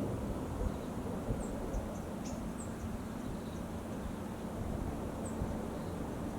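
Outdoor ambience: a steady low rumble with a few faint, short, high chirps scattered through it.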